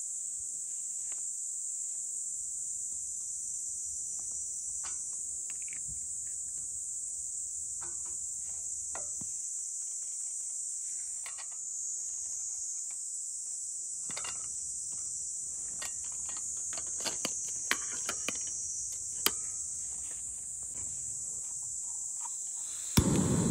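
Steady high-pitched insect chorus, with scattered clicks and a few sharp clatters of metal cookware being handled. Near the end a sharp click and then a loud, steady rush: a canister gas stove lighting and burning.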